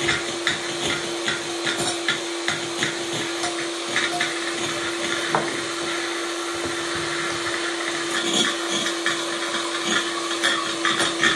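Electric hand mixer running steadily, its beaters whipping egg whites in a bowl, with frequent small knocks as the beaters touch the bowl.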